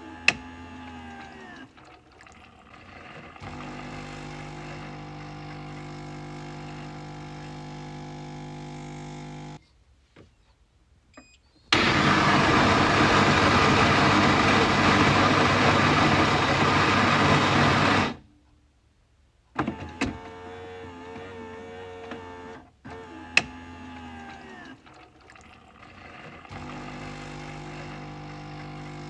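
Coffee machine working through its cycle: a steady motor hum, a few small clicks, then a loud rushing noise for about six seconds. After a short pause the hum returns, with a sharp click partway through.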